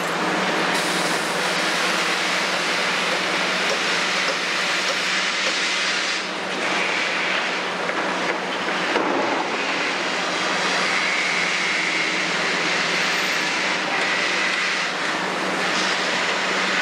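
Kobelco SK350 crawler excavator with its six-cylinder Hino diesel engine running steadily under load and its hydraulics working as it swings a full bucket over a tipper truck and dumps it, with a thud about nine seconds in as the soil drops into the steel truck bed; a faint high whine runs through the second half.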